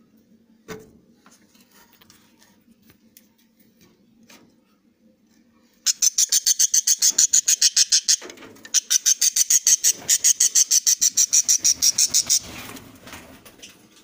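Budgerigar giving a loud, rapid run of high, sharp chirps, about eight a second, in two bursts of roughly two and four seconds with a brief break between them. A single thump sounds just under a second in.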